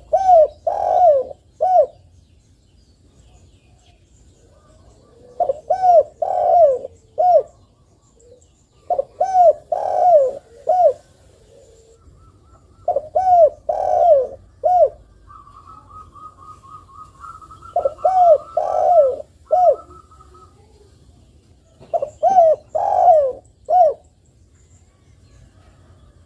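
Spotted dove cooing: short phrases of three or four rounded coos, repeated six times about every four seconds. A thin, higher trill runs under the coos for about five seconds in the middle.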